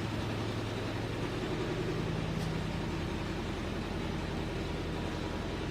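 An engine idling steadily: a low, even mechanical hum.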